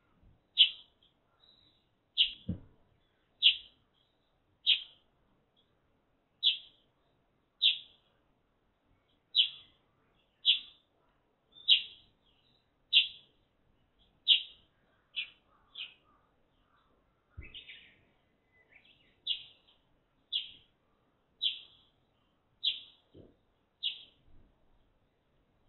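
Eurasian tree sparrow chirping over and over, one short, slightly falling chirp about every second. A few soft thumps come from the bird moving about in the wooden nest box.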